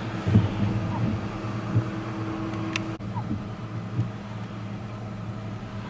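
A vehicle engine running with a steady low hum, with a few dull thumps.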